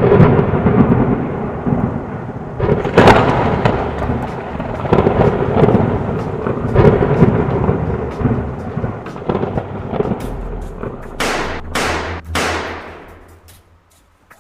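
Loud, thunder-like rumbling with several sudden loud swells and a few sweeping whooshes, fading away near the end.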